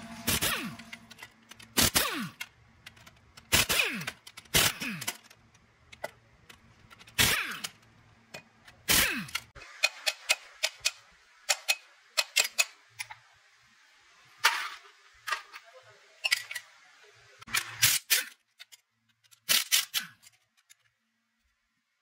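Irregular sharp metal knocks and taps while working on manual gearbox parts, a strike every second or two. Several of the louder ones ring briefly with a falling tone.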